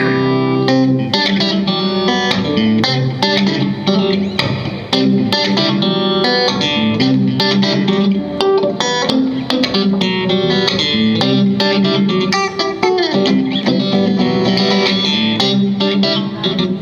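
Guitar playing the song's instrumental intro: a quick, steady stream of picked notes over sustained chords.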